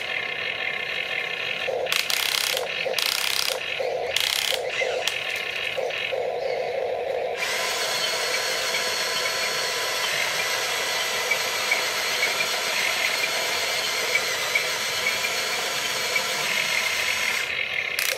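Small electric motors and gearboxes of an RC excavator whining as the boom, bucket and tracks move. The whine stops and starts in short spurts at first, then runs steadily from about seven seconds in.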